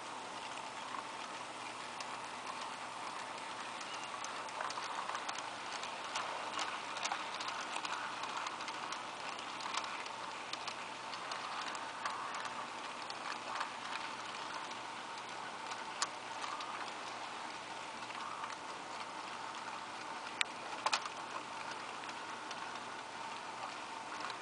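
Model railroad freight cars rolling past: a steady rolling hiss of small metal wheels on the track, with irregular light clicks and a few sharper clicks.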